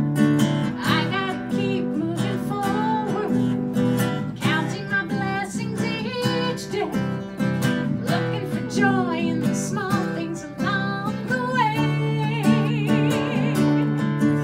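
A woman singing with a strummed acoustic guitar accompaniment, her voice wavering with vibrato on held notes.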